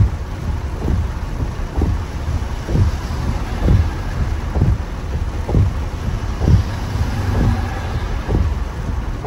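Car driving through heavy rain, heard from inside the cabin: a steady low rumble of tyres, water and rain, with a low thump repeating about once a second.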